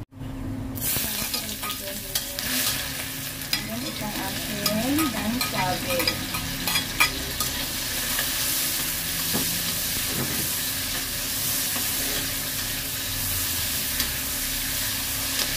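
Chopped ginger, chilli and salted fish sizzling in hot oil in a steel wok, with a metal wok spatula scraping and clicking against the pan as it stirs. The sizzle starts just under a second in; the spatula clicks come thickest in the first half.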